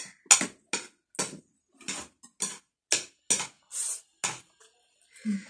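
Close-miked eating sounds of a person chewing instant noodles: wet mouth clicks and smacks about twice a second, with a short slurp near the end.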